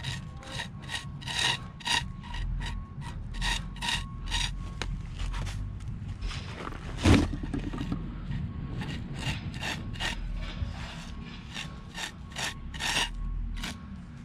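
Pointing tool scraping and rubbing mortar into the joint between stone coping slabs in short, repeated strokes, about two to three a second, with one louder knock about seven seconds in.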